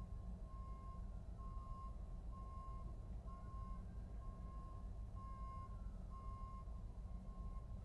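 Truck backup alarm beeping steadily, one beep a little faster than once a second, over a low engine rumble. A faint wailing siren rises and falls behind it.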